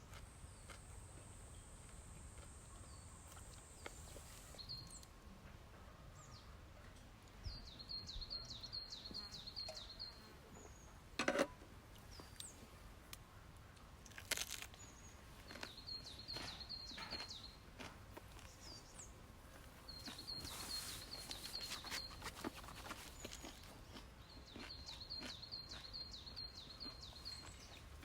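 A songbird singing the same short phrase of rapid high notes over and over, roughly every five seconds, over quiet outdoor ambience. A short sharp knock about eleven seconds in is the loudest sound.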